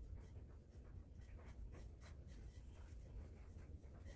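Faint, scratchy strokes of a paintbrush dabbing thick textured paint onto a ribbed tin can, a few light strokes a second over a low room hum.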